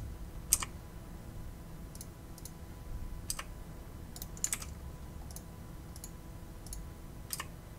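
Computer mouse and keyboard clicks: about a dozen short, sharp taps at uneven intervals, the loudest about half a second in, over a faint low hum.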